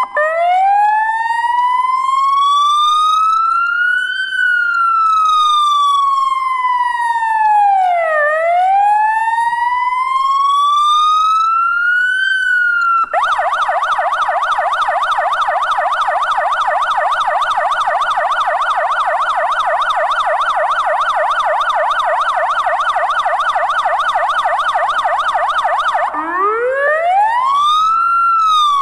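Electronic siren of a Volkswagen Transporter T6 fire-brigade vehicle being run through its tones: a slow wail rising and falling over about four seconds each way, switching about 13 seconds in to a fast yelp, then back to a wail near the end.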